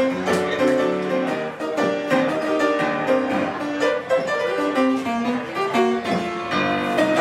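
Upright piano played live, a busy tune of many quick notes and chords.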